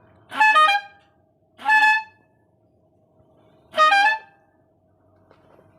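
Tankless telolet air horn sounding three short blasts, each a quick run of a few notes, with longer gaps between the later blasts. A faint steady whine runs underneath.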